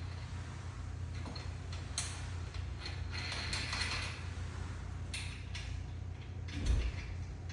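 Steel bracket hardware being handled: clicks, clinks and a scraping stretch as bolts, fender washers and nuts are fitted loosely by hand, with a dull knock near the end. A steady low hum runs underneath.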